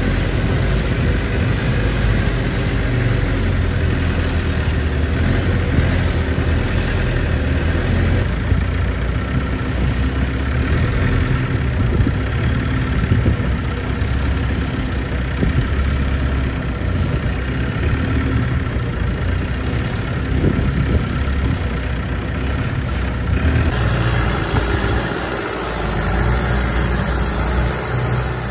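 Long-tail boat engine running steadily while the boat is under way.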